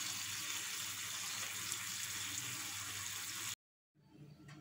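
Egg masala curry sizzling and simmering in a frying pan on a gas stove as it is stirred, a steady hiss that cuts off abruptly about three and a half seconds in.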